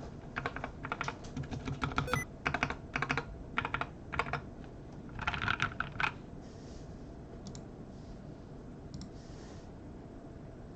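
Typing on a Nuphy Air75 V2 low-profile mechanical keyboard with Nuphy Cowberry switches: a run of separate keystrokes with a quick flurry about five seconds in. The typing stops about six seconds in, leaving only a few faint clicks.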